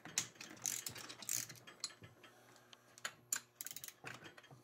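Hand socket ratchet clicking in short irregular runs as it loosens the bolt of an idler wheel on a snowmobile's rear suspension skid.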